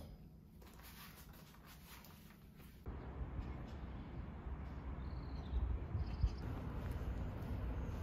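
Faint clicks of cast-iron gas stove grates being handled. About three seconds in, this gives way abruptly to outdoor ambience: a steady low rumble with a few faint high chirps.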